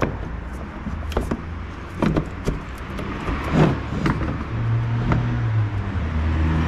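Evaporator being fitted into the heater/AC box: irregular knocks and clicks of parts being handled and pushed into place. Under them runs a steady low hum.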